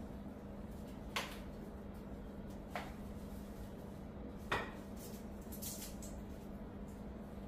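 Three light knocks as a potted plant in a woven basket pot is handled and set down on a stone kitchen countertop, the last one the loudest, with a brief rustle after it. A steady low hum runs underneath.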